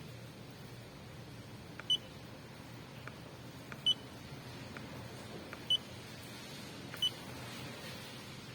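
A digital battery tester beeps four times, short high-pitched beeps one to two seconds apart, each preceded by a faint button click, as it is stepped through its test of a deeply discharged 12 V scooter battery.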